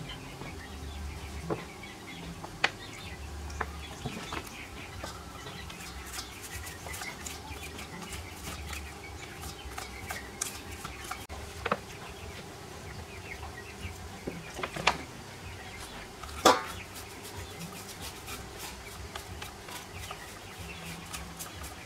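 Metal starter-motor parts being picked up and clinked against each other and the sides of a steel basin: scattered sharp clinks over a low steady background.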